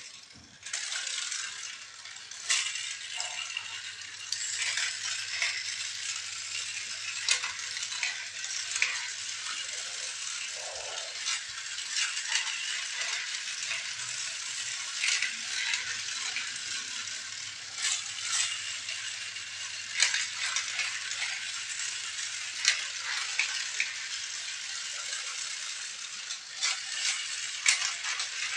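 Toy vehicles being handled: a steady rustling hiss with frequent small rattles and clicks.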